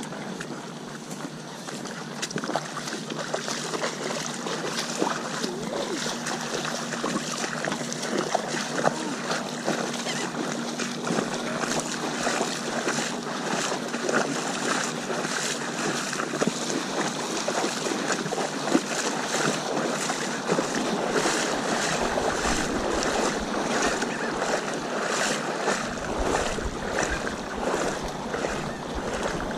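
Shallow water splashing and sloshing around the legs of people wading through it, many small splashes following one another with each stride. A low wind rumble on the microphone joins in near the end.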